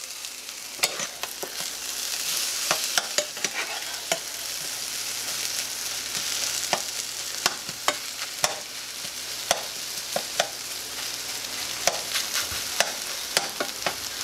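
Scrambled eggs frying with a steady sizzle in a small nonstick pan. A spatula stirs and turns them, clicking and scraping against the pan about once or twice a second.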